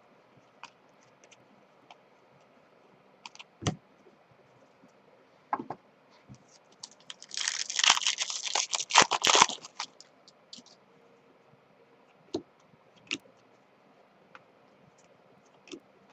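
Trading cards and pack wrappers being handled: scattered light clicks and taps, with a burst of rustling and crinkling about seven to nine and a half seconds in.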